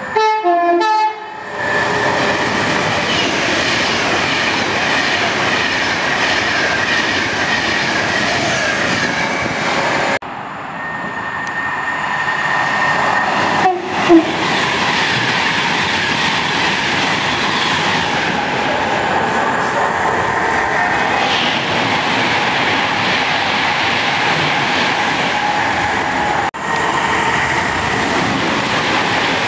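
Class 390 Pendolino electric trains passing through at speed: a short horn blast at the start, then a steady loud rush of wheels on rails. The sound breaks off abruptly twice, and there is a brief loud blip about 14 seconds in.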